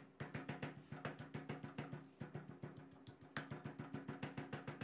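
Granite pestle pounding chilies, garlic and coriander roots in a granite mortar, in quick, even strokes about seven a second, with brief pauses about two and three seconds in.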